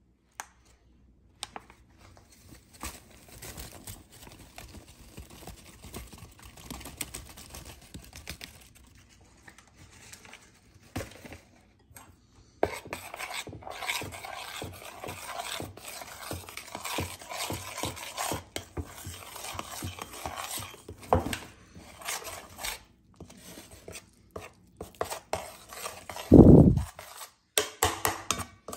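Flour being poured from a plastic bag with faint rustling, then a spoon stirring it into wet batter in an enamel bowl, scraping and clinking against the bowl from about halfway in. A single loud dull thump near the end.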